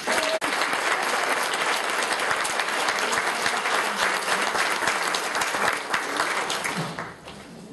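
Audience applauding, a dense steady clapping that dies away about seven seconds in.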